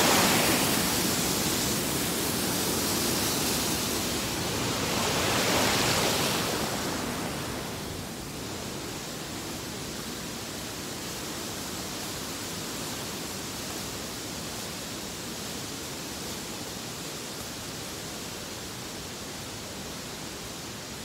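Rushing stream water pouring over rocks, loud at first and swelling again about five seconds in, then dropping about eight seconds in to a softer, steady rush.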